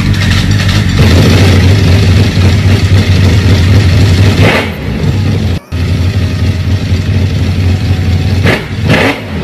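Two superbike engines running together, the Ducati V4 R's V4 idling loudly over the Honda CBR600RR's inline-four. Short throttle blips about four and a half seconds in and again near the end, with a momentary break in the sound just past halfway.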